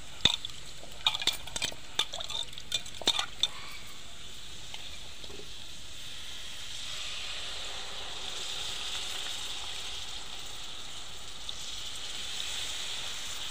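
Fish, onions and green chillies frying in oil in a steel pot, sizzling steadily, the sizzle swelling a little in the second half as tamarind juice is poured in. A few sharp clinks and knocks in the first few seconds.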